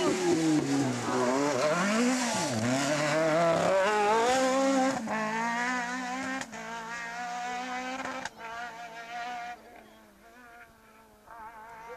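Rally car engine revving hard, its pitch climbing through each gear and dropping sharply at each shift or lift. It then fades away as the car pulls off into the distance, with only a faint engine note left near the end.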